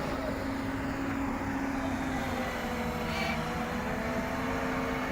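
Diesel engine of a Volvo 220 excavator running steadily under work, a low rumble with a steady whine over it; a faint higher whine rises and falls briefly about three seconds in.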